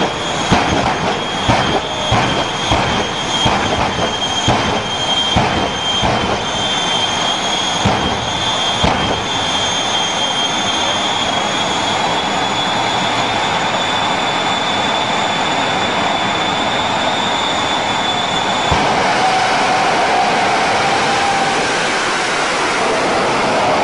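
Jet engine of a jet-powered truck running with a steady high-pitched whine over a loud rushing roar. A series of sharp bangs, roughly one a second, comes through the first nine seconds or so. The whine stops about five seconds before the end, leaving the roar and a lower tone.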